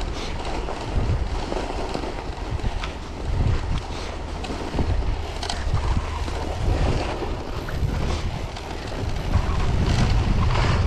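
Wind rumbling on the microphone of a cyclocross bike ridden over packed snow, with tyre noise and scattered clicks and knocks from the bike over the rough surface. The noise grows a little louder near the end.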